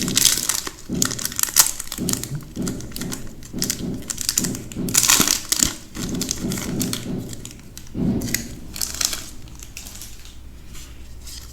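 Foil booster-pack wrapper crinkling in bursts as it is handled and opened by hand.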